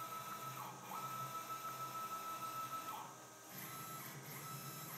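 Stepper motors of a Platform CNC machine jogging the axes at 200 inches per minute, giving a steady motor whine. The whine breaks off briefly twice, about a second in and about three seconds in, as the motion stops and changes.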